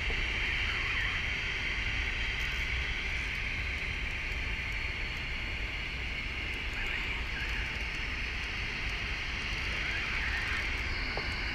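Steady wind rumble and hiss on the microphone, with no distinct events.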